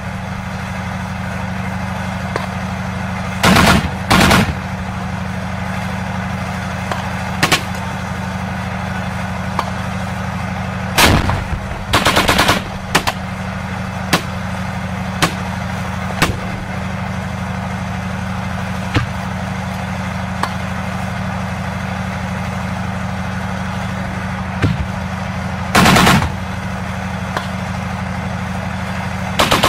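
Small-arms fire: short bursts of automatic rifle or machine-gun fire, the loudest about 4, 12 and 26 seconds in, with single shots scattered between. Under it runs a steady drone from the idling engine of a tank.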